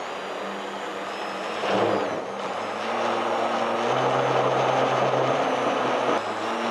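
Electric blender running, mixing the liquid galbi-jjim marinade with the sesame oil and olive oil just added. The motor's pitch shifts a few times and the sound gets louder about three seconds in.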